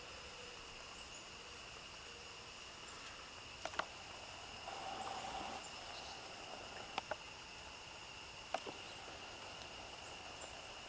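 Faint, steady insect chirring, a continuous high drone, with a few brief soft clicks scattered through it.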